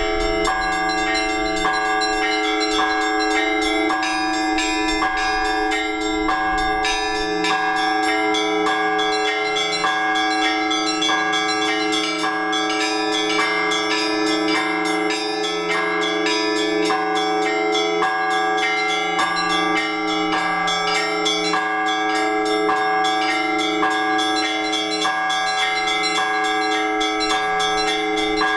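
Orthodox church bells rung together by hand from a bell tower. Several bells of different pitches are struck in a quick, repeating pattern over the sustained ringing of the deeper bells.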